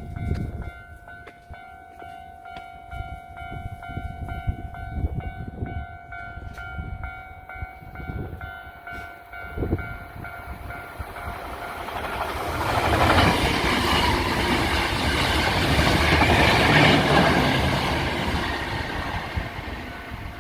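Japanese level-crossing warning bell ringing steadily while a Hankyu Kobe Line train passes over the crossing. The train's noise swells a little past halfway, is loudest about three quarters through, then fades.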